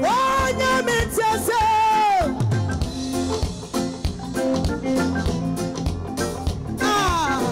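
Live gospel band with bass guitar and drum kit playing under a woman singing into a microphone: she holds one long high note that bends down about two seconds in, the band carries on alone, and she comes back with a falling phrase near the end.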